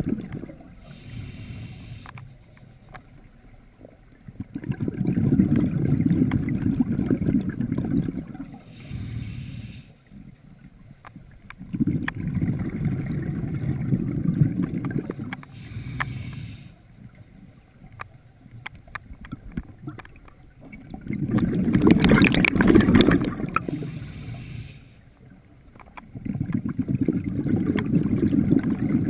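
Scuba diver breathing through a regulator underwater: a short hiss with each inhalation, then a few seconds of rumbling exhaust bubbles with each exhalation, four breaths in all.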